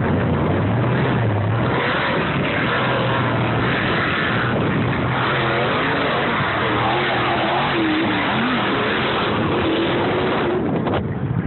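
Off-road race vehicle engine running loud, its pitch wavering up and down as it revs through the middle.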